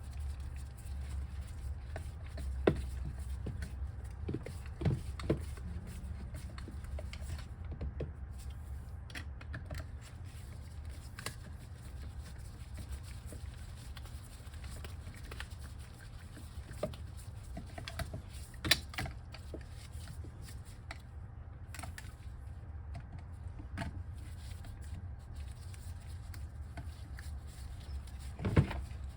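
Scattered clicks and knocks of hand tools and screws on the metal cover of a Kaabo Wolf King 1500 W electric scooter hub motor as its cover screws are tightened, over a steady low hum.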